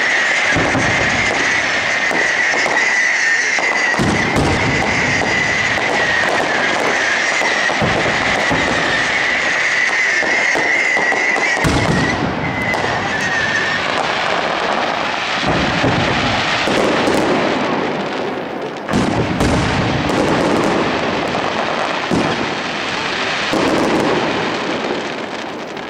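Aerial fireworks display: shells bursting with deep booms every few seconds over a continuous dense crackle. A steady high-pitched whistle runs through the first half and fades out about halfway.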